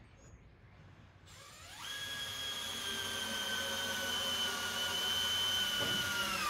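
Handheld power drill boring into a wooden post: the motor spins up about a second and a half in, runs as a steady high whine that sags slightly under load, then drops and stops abruptly at the end.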